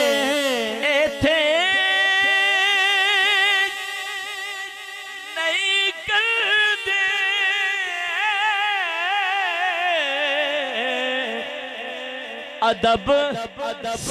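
A man singing a Punjabi naat unaccompanied, drawing the words out in long melismatic notes with a steady wavering vibrato. A new word begins near the end.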